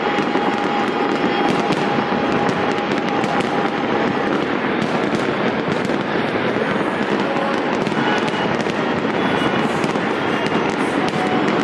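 Fireworks display going off in a dense, continuous barrage of bangs and crackling, with a steady high whistle through the first few seconds.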